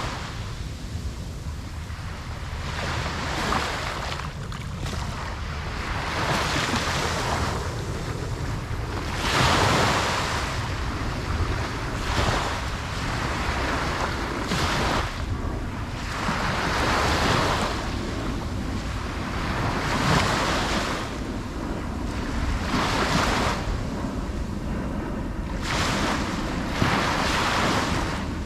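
Ocean waves breaking and washing on a shore, one surge of surf every two to three seconds over a steady low rumble, with some wind on the microphone.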